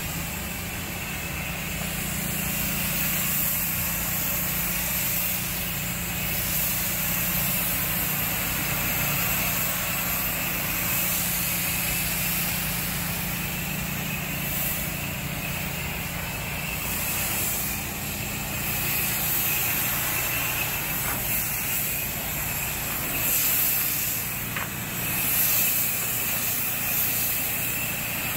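Low-pressure, high-volume water spray from a hose gun hissing against a stucco wall, over the steady running of an engine-driven pump.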